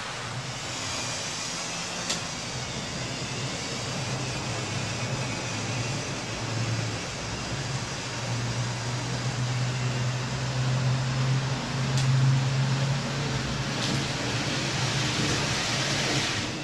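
Model train running on a layout: a steady low motor hum over a haze of wheel-on-rail noise, growing somewhat louder toward the middle, with a few sharp clicks.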